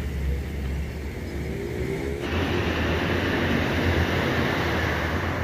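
A vehicle engine running steadily with a low hum, and a louder rushing noise joins it about two seconds in.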